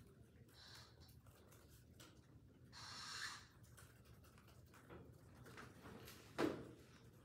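Quiet small-room tone with a brief hissing swell, like a sniff or rustle, about three seconds in, and a single sharp knock a little past six seconds.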